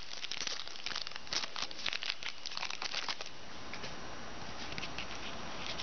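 Foil trading-card pack wrapper crinkling as it is torn open, with dense crackles for about three seconds, then quieter with a few light crackles near the end.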